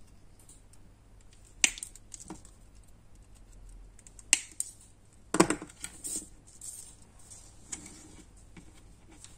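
Small wire cutters snipping thin metal wire: a few separate sharp snips and clicks, the loudest about five and a half seconds in, with quieter taps after it.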